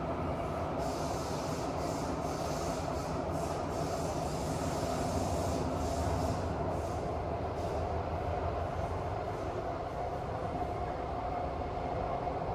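Singapore MRT subway car running, heard from inside the cabin: a steady rumble of wheels on track with a constant whine over it.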